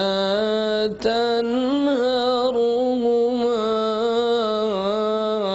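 A man's voice chanting a Quran recitation in long, melodic held notes, with a brief pause for breath about a second in.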